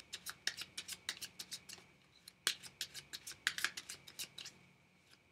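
A deck of Fournier 605 playing cards being cut and handled: a run of quick, irregular snaps and clicks of card against card, thinning out near the end.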